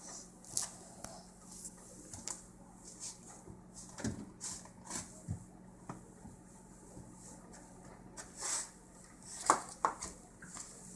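Scattered light knocks and bumps of refrigerator drawers and door as a toddler climbs the refrigerator, using it as a ladder; the loudest knocks come about halfway through and again near the end.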